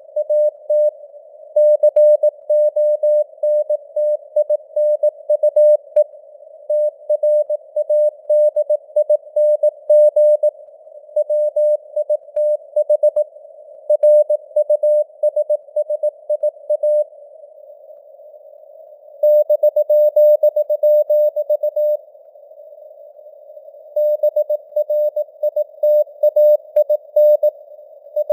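Morse code (CW) at 18 words per minute: a single mid-pitched tone keyed on and off in dots and dashes, over narrow hiss of simulated radio noise, its strength fading up and down (QSB). Two longer pauses fall in the middle stretch.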